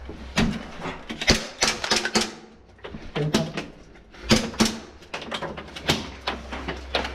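Irregular sharp clacks and knocks, several a second, in an echoing room, with a brief low voice-like sound about three seconds in.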